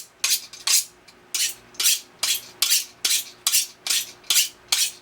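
A kitchen knife being sharpened: about eleven quick, even rasping strokes of the blade across a sharpener, with a short pause about a second in.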